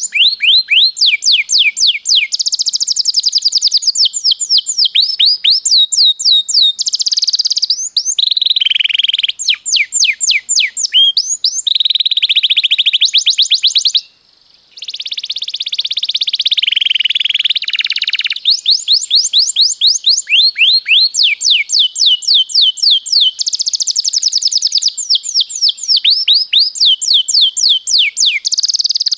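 Domestic canary singing long rolling trills: fast runs of quickly repeated sweeping notes, phrase after phrase at changing speed and pitch, with a half-second pause about halfway through.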